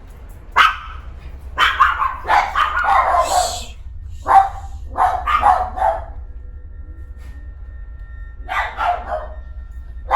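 Unseen animals in the yard giving short barking cries in several bursts, with pauses between them.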